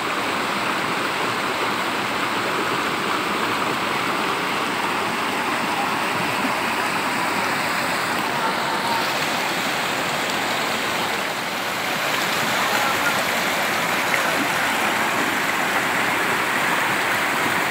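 Whitewater rapids of a river rushing over and between boulders: a steady, dense rush of water, a little louder about two-thirds of the way through.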